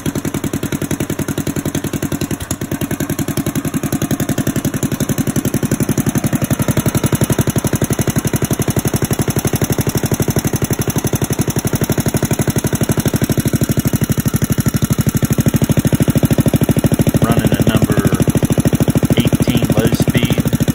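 Briggs & Stratton Raptor 3 single-cylinder race engine with a long-pipe two-stage header exhaust running steadily at idle, a little louder in the second half. It is freshly rebuilt and still needs break-in time.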